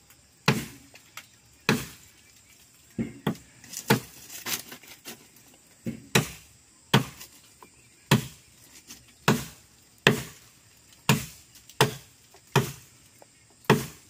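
Axe blows chopping into a small tree trunk near its base, about a dozen sharp chops at roughly one a second.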